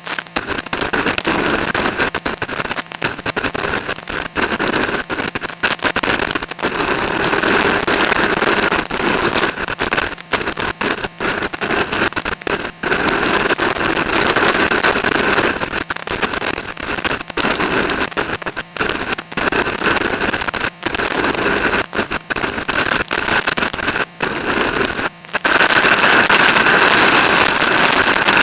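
Strong wind blasting straight onto the microphone: a loud, rough rushing with crackling and many brief dropouts, growing louder near the end.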